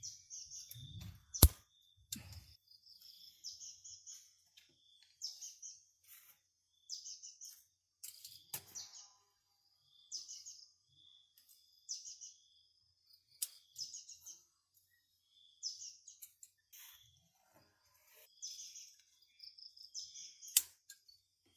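A bird calling over and over, short high chirping phrases repeating about every one and a half to two seconds. A few sharp clicks cut in, the loudest about a second and a half in.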